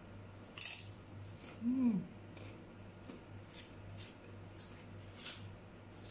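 Crunching of a crisp kerupuk cracker being bitten and chewed, a sharp crunch roughly every second, the loudest about half a second in. A short hummed "mm" comes about two seconds in.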